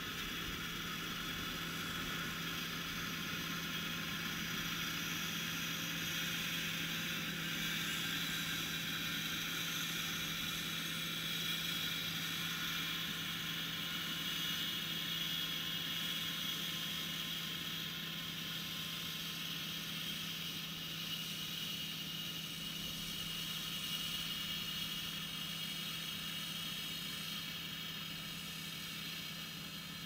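Vintage combine harvester running close by, a steady hum with a whirring, hissing layer over it and no change in speed.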